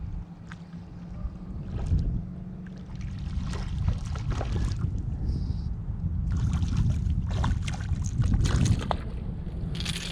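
A fishing boat moving on choppy, windy water: a steady low motor rumble with irregular surges of wind and water splashing against the hull.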